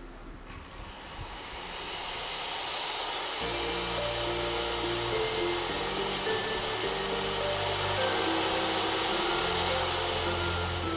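Hand-held electric drill spinning up, running steadily for about eight seconds and winding down near the end, boring a hole into a metal pillar. Background music plays underneath.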